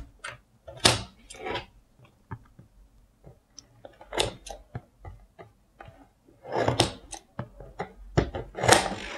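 Small scissors snipping through the tape seals on a cardboard box, with scattered clicks and rustles of the cardboard and louder scraping near the end as the flap is worked open.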